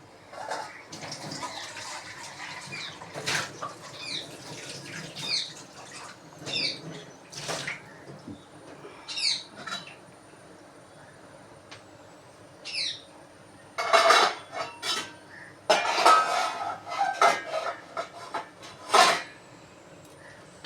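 Kitchen utensils and dishes clinking and clattering, with a burst of louder clatters about two-thirds of the way through. A small bird chirps a few times in the first half.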